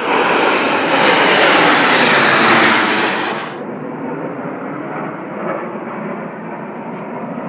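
Dassault/Dornier Alpha Jet formation passing low overhead with a loud, rushing jet noise. About three and a half seconds in, the high part of the sound cuts off abruptly, leaving a duller, quieter, steady jet noise from the formation further away.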